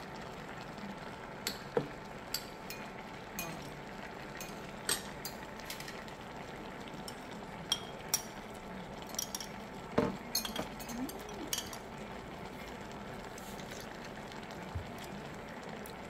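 Scattered light clinks of a metal spoon against a small ceramic bowl while someone eats from it, several close together about two-thirds of the way through. Under them runs a steady low background from the fish stew simmering in its pot.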